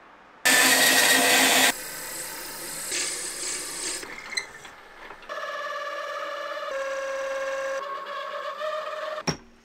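A wood lathe spins a pen blank while a twist drill bit bores into its end, giving a steady whine that shifts in pitch a couple of times. It is preceded by a very loud burst of machine noise lasting about a second, and there is a sharp knock near the end.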